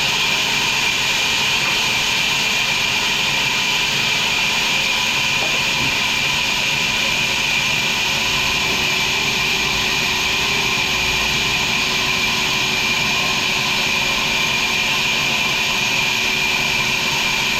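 Sawmill machinery running steadily: a loud, unbroken mechanical noise with a strong hiss, no starts or stops.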